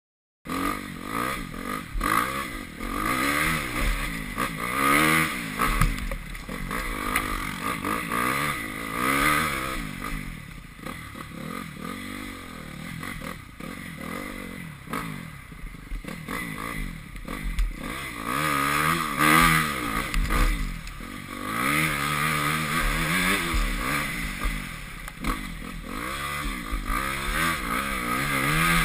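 Motocross bike engine heard on board while riding a dirt track, revving up and falling back again and again as the rider accelerates, shifts and backs off between bumps and corners.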